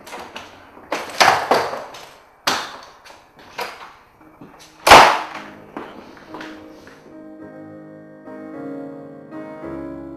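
Knocks and bumps, then a door shutting with a loud bang about five seconds in. Soft piano music begins about two seconds later.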